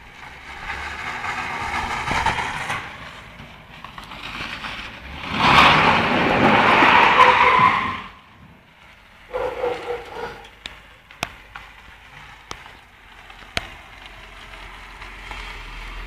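Customised Volga rat-rod car spinning in circles: engine running hard and tyres skidding, with the loudest stretch of tyre squeal from about five to eight seconds in. Quieter scattered clicks follow.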